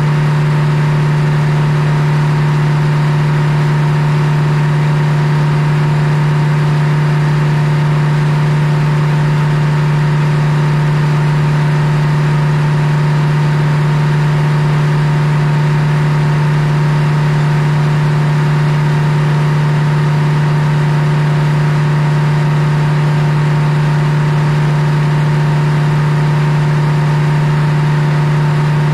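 Belt-driven circular sawmill running steadily: a loud, unchanging machine drone with a strong deep hum from the power unit and drive turning the big blade.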